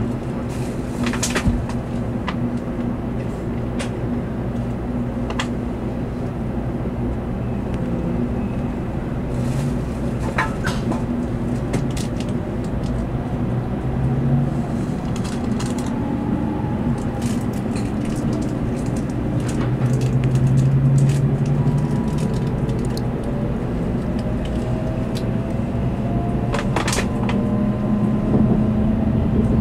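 Cabin noise inside an N700A Shinkansen car running at speed: a steady low rumble of running gear and air, with scattered sharp clicks and creaks. A faint whine rises slowly in pitch through the second half.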